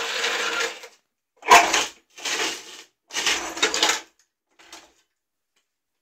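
Heavyweight combat robot running on a very low battery, driven in short jerks on a gritty concrete floor. Its drive motors and tyres scrub and grind in four bursts over about four seconds, with a faint fifth one after.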